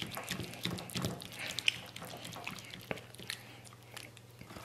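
Small kitchen knife slicing through the soft braised skin and fat of a pig head, with scattered short clicks and soft wet squishes as the blade works through. A faint steady hum lies underneath.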